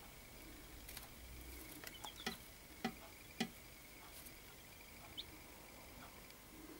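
Faint, scattered high peeps from baby chicks, with a handful of sharp taps loudest around the middle.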